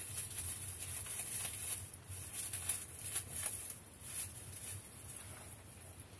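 Plastic bag rustling and crinkling in the hands as a sandwich is unwrapped, with a few light irregular crackles.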